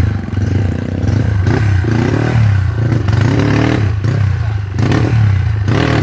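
KTM enduro dirt bike engine revving up and down in repeated bursts as the bike is ridden through a muddy stream, its rear wheel spinning and throwing up mud and water.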